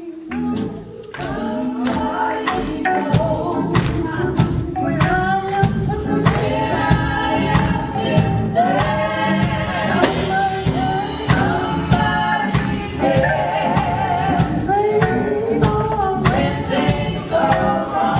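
A women's gospel quartet recording: voices singing together over band accompaniment with a steady beat.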